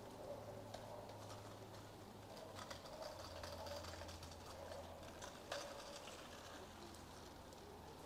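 Quiet street ambience: footsteps on wet pavement as a few scattered clicks, the sharpest about two-thirds of the way through, over a low steady hum, with birds calling faintly.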